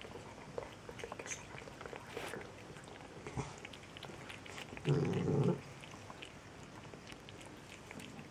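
Two cats lapping milk from a small shared bowl: quick, irregular wet licking clicks. About five seconds in, one of the cats gives a single short, low vocalisation lasting under a second, the loudest sound.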